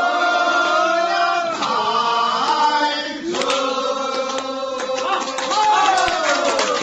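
Group of people singing a drinking song together in unison, holding long drawn-out notes. Hand claps join in from about halfway through.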